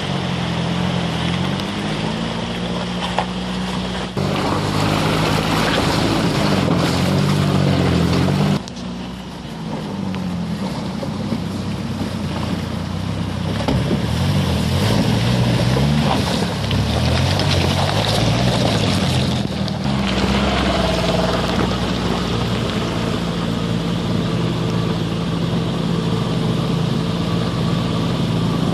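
Toyota Tacoma pickup engine revving up and down under load as the truck drives down a gravel bank and fords a shallow river, with water splashing and churning around the wheels. From about two-thirds of the way through, an engine runs at a steadier note.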